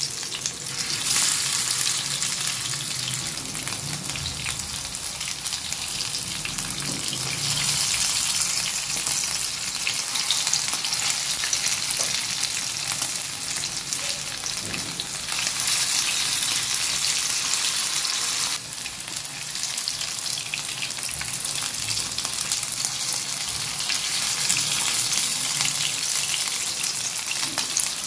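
Potato cutlets shallow-frying in hot oil in a non-stick frying pan: a steady, dense sizzle that drops suddenly in level about two-thirds of the way through.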